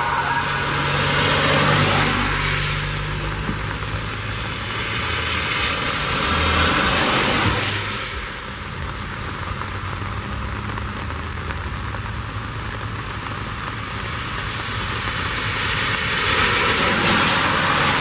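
Road traffic on a rain-wet road: cars passing with tyre hiss that swells and fades several times over a steady low engine hum.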